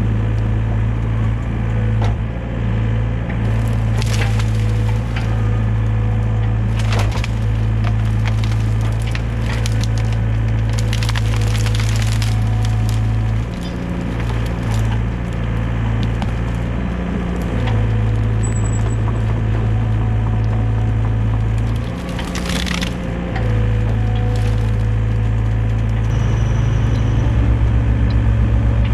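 Excavator's diesel engine running steadily under load, with branches cracking and splintering in several loud bursts as brush is grabbed and shoved into the pile.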